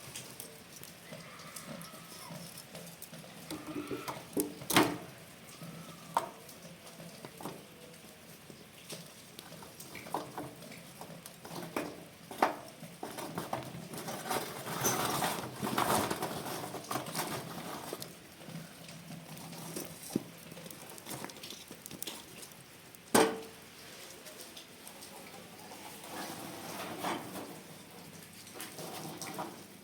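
Irregular handling sounds: scattered clicks and light knocks with rustling, a sharper knock about five seconds in and another near 23 seconds.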